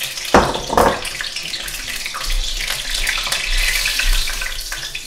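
Battered fish deep-frying in a pot of hot oil: a steady sizzle with fine crackling, and two sharp knocks near the start.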